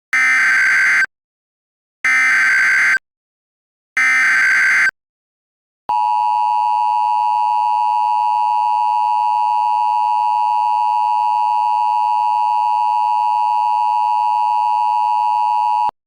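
Emergency Alert System broadcast tones: three one-second bursts of SAME header data, a second apart, then the steady two-tone EAS attention signal, held for about ten seconds and cut off abruptly. It is the tone sequence that opens an emergency alert message, here ahead of an all-clear.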